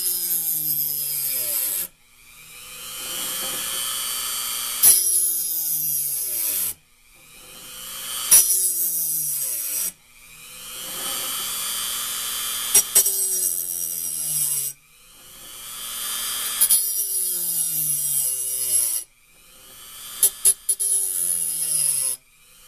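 Dremel rotary tool with a small pink grinding stone grinding the teeth of a bimetal hole saw, one tooth at a time. About five passes, each starting with a sharp grinding bite and then a whine that falls in pitch as the stone bears down, before cutting off suddenly and building up again. Each pass sharpens the top of a tooth and reshapes its gullet.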